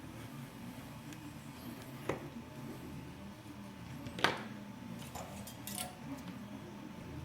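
A few light clicks and taps of small hard objects being handled, the loudest just past four seconds in, over a steady low hum.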